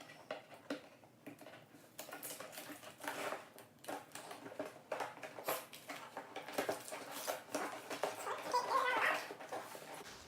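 Cardboard box and plastic packaging being opened and handled: rustling and crinkling with many small clicks and taps. A short squeaky sound that wavers in pitch comes near the end.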